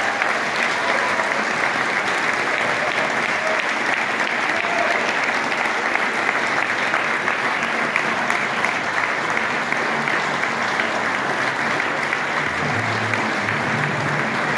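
A large hall audience applauding steadily with many hands clapping at once. Low music notes come in faintly underneath near the end.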